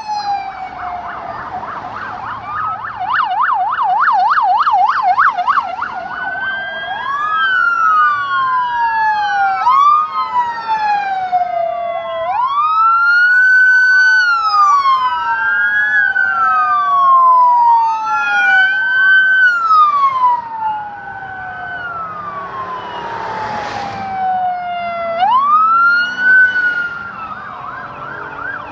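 Several police cruiser sirens sounding as the cars drive past: a rapid yelp for a few seconds near the start, then overlapping slow wails rising and falling. Late on, the rush of a car passing close.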